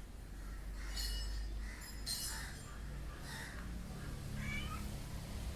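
Domestic cat making a few short, soft chirps and a brief rising call about four seconds in, over a steady low hum.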